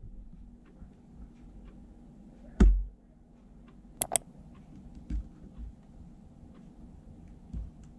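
An HP laptop's lid is shut with a dull thud about two and a half seconds in. Two sharp clicks follow, then a few soft knocks as a hand handles the laptop.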